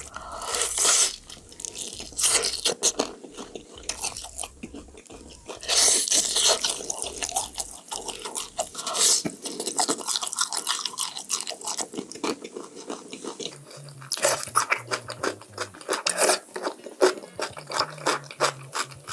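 Close-miked biting and chewing of crispy fried chicken: repeated crunches of the breading with wet chewing between bites.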